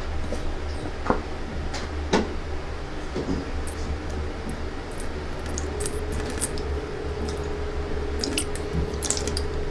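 Water trickling down a thread from one drinking glass into another, with small drips and a few light clicks against the glass over a steady low hum.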